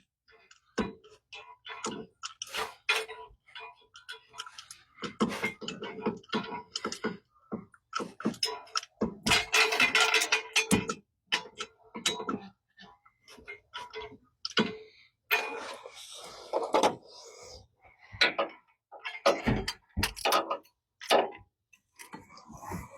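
Irregular clicks, clinks and knocks of hand tools and metal parts being handled during work on a truck, with a denser clatter about nine to eleven seconds in.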